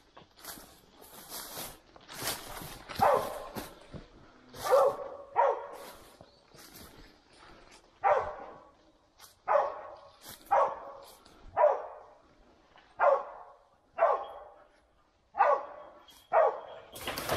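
A boar-hunting hound barking steadily, about one bark a second, starting about three seconds in: a hound baying once it has found the boar. Footsteps rustle through dry bamboo litter and brush at the start.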